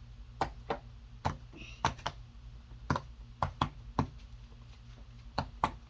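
Silicone push-pop bubble fidget toy being pressed: about a dozen sharp pops at an uneven pace, some in quick pairs, as the bubbles are pushed through one by one.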